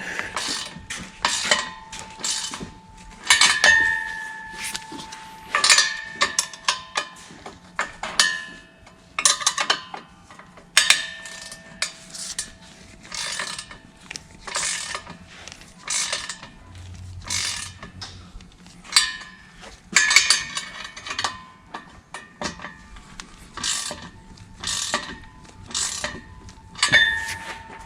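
Hand tools working the through-bolts and nuts on a truck's exhaust pipe flange: irregular metallic clicks and clinks, several of them ringing briefly.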